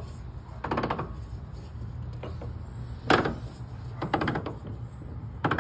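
231 transfer case being turned by hand at its output yoke, giving four short bursts of rapid metallic clicking and clunking from inside the case. Something in the case is definitely not right.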